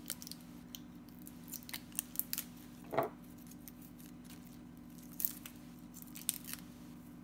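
An eye pencil's cosmetic packaging being opened by hand: scattered light clicks and snips, a few at a time, with one brief louder sound about three seconds in.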